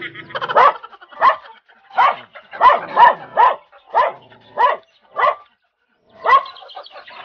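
A dog barking over and over, short sharp barks about every half second to second, with a brief pause about five and a half seconds in.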